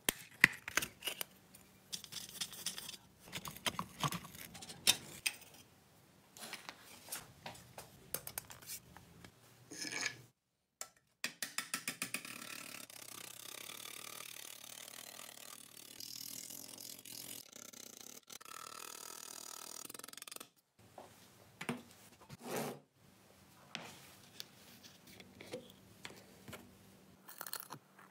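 Hand tools working small rusty sheet-metal parts: a screwdriver scraping and prying at the metal with scattered clicks and taps, and a stretch of steady scraping noise in the middle.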